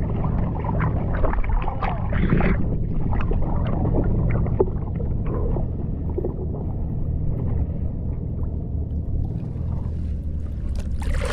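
Seawater sloshing and splashing against an action camera held at the sea surface, with many small splashes and a steady low rumble beneath; a louder rush of water comes near the end.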